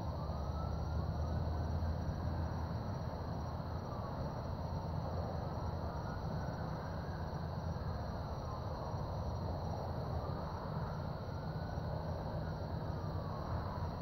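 Low steady rumble of the distant Atlas V rocket climbing away, with a slow wailing tone rising and falling above it every few seconds.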